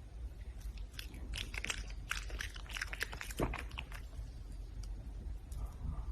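Red panda chewing and biting into crunchy food, a quick run of crisp crunches that is thickest from about one to four seconds in, then sparser.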